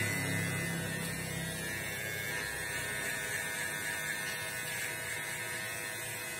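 Electric hair clippers running steadily. The motor hum is stronger for the first second or so, while the blades are at the hair, then settles to a lower steady running.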